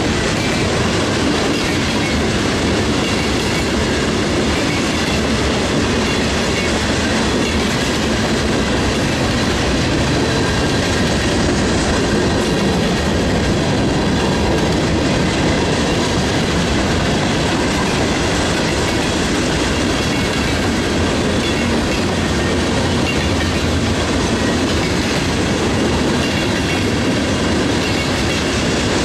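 Cars of a Norfolk Southern mixed freight train rolling past, covered hoppers, tank cars and boxcars. Their steel wheels make a steady, loud running noise on the rails.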